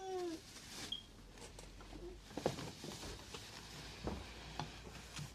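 A baby's short falling whimper right at the start, then faint scattered clicks and taps of small handling noises against a low room hum.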